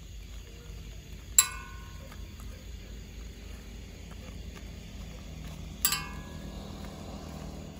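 Two sharp knocks about four and a half seconds apart, each followed by a brief ringing, over a steady low hum.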